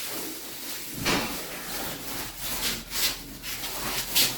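Irregular scrubbing or rubbing strokes on ceramic tile, cleaning stuck-on residue off the tiled surface.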